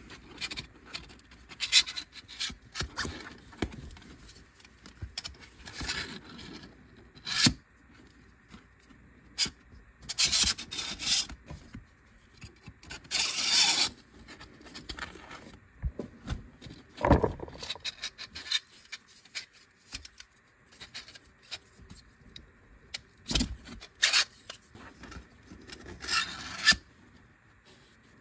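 3D-printed plastic fidget in use: a twisted red piece rubbing and scraping as it is slid through a blue pentagonal pyramid shell, in irregular bursts. There are a few sharp plastic clicks and knocks between the bursts.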